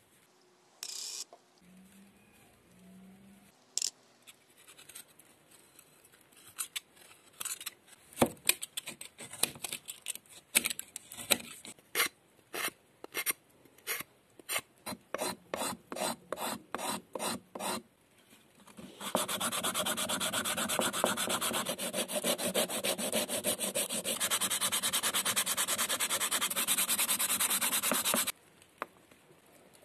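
Hand scraping strokes on a wooden dowel handle, separate strokes about one or two a second, followed by continuous, brisk rubbing with sandpaper for about nine seconds that stops abruptly.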